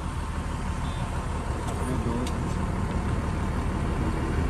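Truck engine running under way with road noise: a steady low rumble that holds level.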